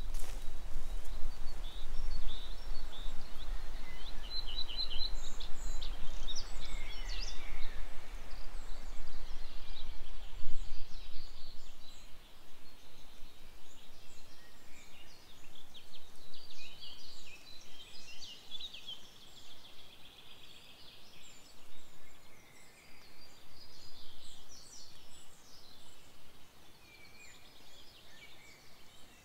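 Several songbirds singing and calling, many short high notes throughout. A low rumble of wind on the microphone runs through about the first twelve seconds and then stops.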